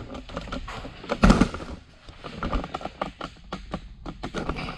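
Handheld camera being handled and set down: a thump about a second in, then a run of light clicks and knocks.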